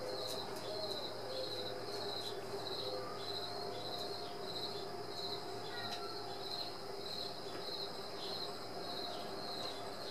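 An insect calling outside in a steady rhythm of high chirps, about three every two seconds, over a faint steady hum.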